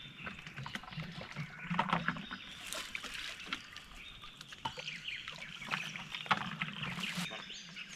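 A plastic bucket being dipped and rinsed out in swamp water: irregular sloshing and splashing, with small knocks and drips.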